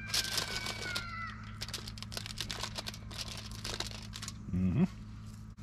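Meatballs sizzling and popping in butter and oil in a pan, a dense run of crackles for about four seconds over a steady low hum. Over the first second a drawn-out, wavering animal call falls slightly in pitch, and a man's short hum of voice comes near the end.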